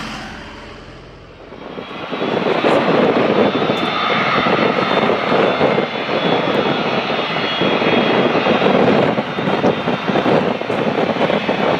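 McDonnell Douglas MD-83 jet airliner taxiing, its two rear-mounted Pratt & Whitney JT8D turbofans running with a steady loud rush and a thin high whine. The engine noise swells in over the first two seconds, then holds.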